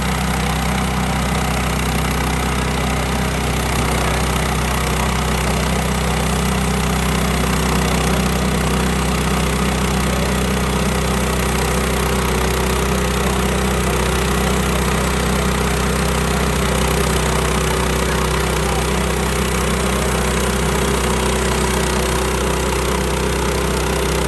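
Portable sawmill's engine running at a steady speed, with no change in pitch or load.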